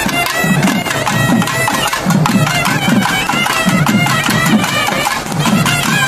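Traditional festival music: a reed-like wind instrument plays a wavering, ornamented melody over a steady, rapid beat of drums.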